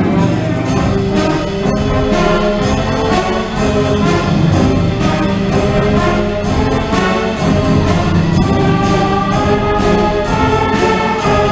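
Middle school concert band playing a piece live, brass leading over sustained notes with regular percussion strikes.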